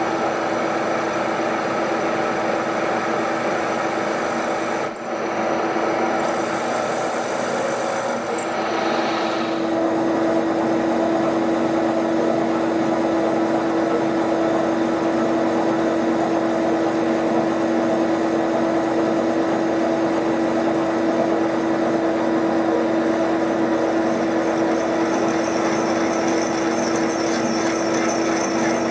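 Bridgeport milling machine spindle running steadily while a drill cuts a hole into a steam locomotive crosshead. It makes a steady hum with a constant mid-pitched tone. A high whine over the first eight seconds breaks off briefly twice and then stops.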